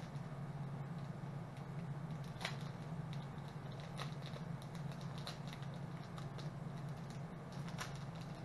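Small plastic kit pieces and their bag handled by fingers: scattered faint clicks and crinkles with a few sharper ticks, over a steady low hum.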